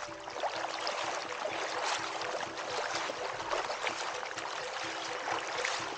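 Water splashing and trickling from kayak paddle strokes: a steady, dense patter of small splashes and drips.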